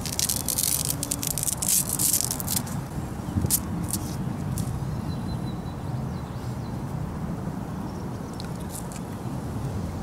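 Cattail stalk being peeled by hand: a dense run of crisp crackling and tearing for the first two or three seconds as the leaf layers are stripped off, then a few single snaps and clicks, over a steady low rumble.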